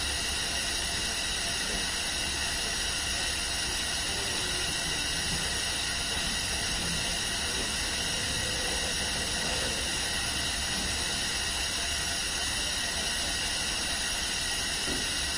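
Hospital room tone: a steady hiss over a low hum, with several faint high tones held steady.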